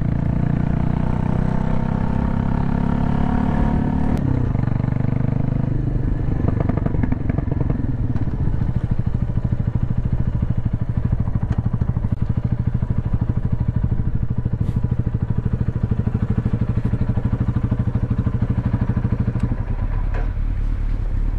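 A Mutt motorcycle's single-cylinder engine running under way. About four seconds in it eases off, then chugs at low revs with evenly spaced firing pulses as the bike rolls slowly. Near the end the sound changes again as the bike settles into a parking space.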